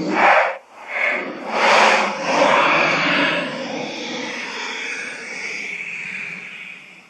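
Edited Shin Godzilla monster sound effect: a few short, loud bursts, then a long rushing sound with a held high tone that slowly fades out.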